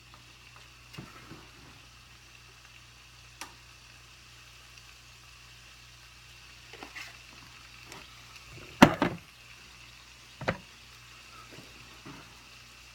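Scattered knocks and clatters of kitchen utensils and cookware over a steady faint hiss. The loudest, a double clatter, comes about two-thirds of the way through.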